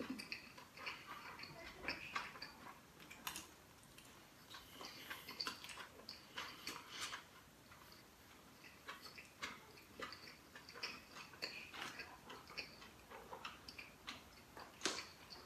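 A person chewing a mouthful of steamed bun with the mouth closed: faint, irregular clicks and smacks picked up close on a clip-on microphone.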